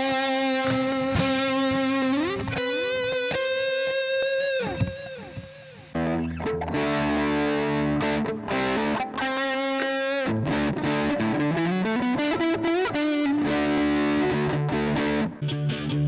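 Electric guitar fitted with J&D ST-Mini pickups, played through an amp with some overdrive. Single-note lead lines with string bends and vibrato come first, then strummed chords from about six seconds in, mixed with more bent lead notes.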